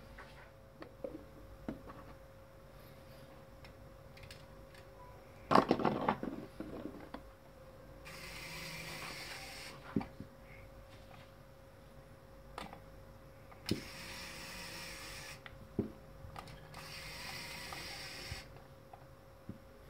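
LEGO EV3 servo motors driving the robot's grip arm through LEGO gears whir in three runs of a second and a half to two seconds each, as the gripper works around an object. Scattered plastic clicks, and a loud clatter of handling about six seconds in.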